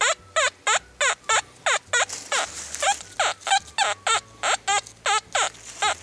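Metal detector's target tone chirping over and over, about three short bending-pitch beeps a second, as the coil is swept back and forth over a buried target that the detectorist takes for a Scythian arrowhead.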